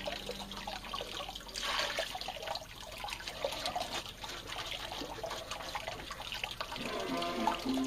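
Water sloshing and trickling with small wet clicks as whole fish are handled and rinsed in a concrete washtub sink.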